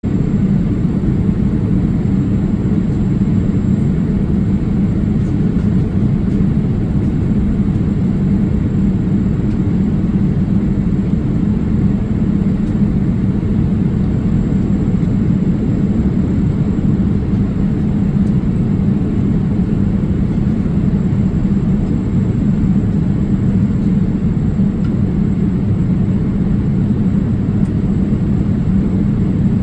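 Steady cabin noise of a Boeing 787-8 airliner in flight, heard from a window seat over the wing: a constant low rumble of engines and airflow at a level, unchanging pitch, with a faint high hum above it.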